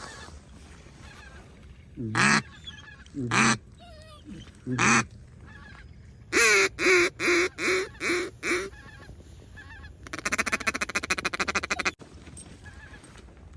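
Hunter blowing a mallard duck call: three drawn-out single calls, then a descending string of six quacks (a hail call), then a fast rattling feeding chuckle for about two seconds.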